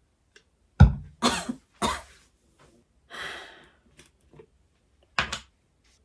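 A person coughing several times, with a breathy exhale a little after the middle and one more short cough near the end.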